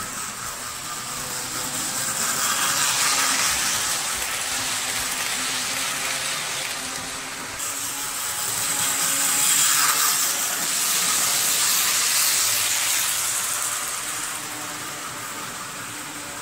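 HO scale model train running on the layout's track: a steady hissing rattle of wheels and motor that swells twice as the train passes close, over a faint low hum.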